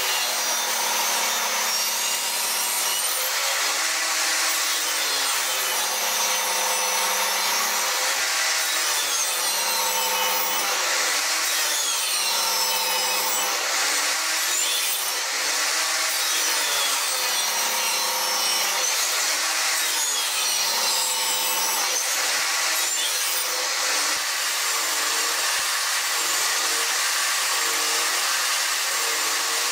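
Table saw running and cutting a series of narrow slots into the end grain of an upright board held in a tenoning sled. The saw's high whine rises and falls in a repeating pattern about every two seconds.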